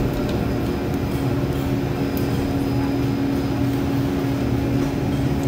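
Gondola lift station machinery running with a steady hum.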